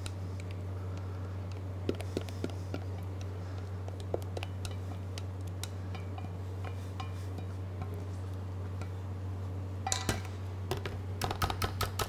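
A few scattered light clicks of wire whisks against a stainless steel bowl while thick mango mousse base is poured into whipped cream; about eleven seconds in, a wire whisk starts beating in the bowl, its wires clicking against the steel several times a second. A steady low hum lies under it all.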